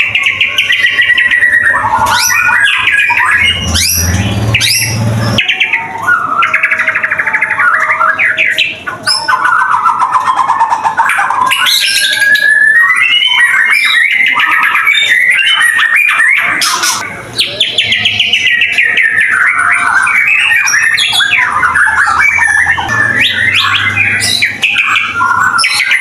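White-rumped shama singing loud, varied song without a break: fast trills, rising and falling whistles and rapid repeated notes.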